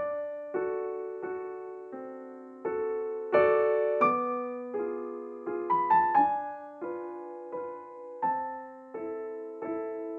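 Solo piano playing a slow waltz: notes and chords struck roughly every two-thirds of a second, each ringing on and fading before the next.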